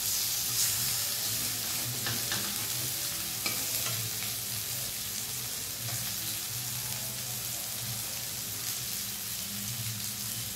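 Spiced boiled elephant foot yam pieces sizzling steadily in mustard oil in a metal kadhai. A metal spatula scrapes and taps the pan a few times in the first few seconds, then the sizzle goes on alone.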